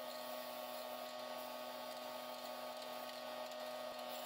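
Aerosol spray-paint can hissing steadily as paint is sprayed, over a steady low hum.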